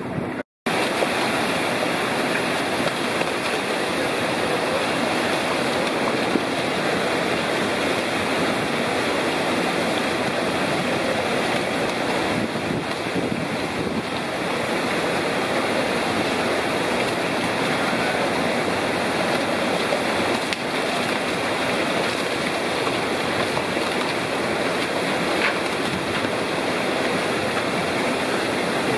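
Steady rush of churning water in a salmon hatchery's fish ladder and holding pool crowded with salmon, cut by a brief gap about half a second in.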